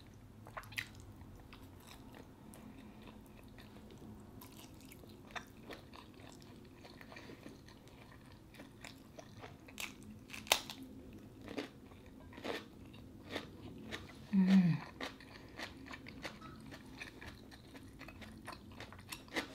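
Close-up eating sounds: chewing and swallowing with scattered wet mouth clicks, and a crisp bite and crunch into a whole raw English cucumber about halfway through. A short, low hum falling in pitch comes from the eater a few seconds later.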